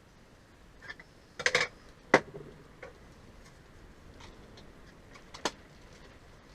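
A few short, sharp clicks and taps of small parts and tools being handled on a workbench, the sharpest about two seconds in and a last one near the end.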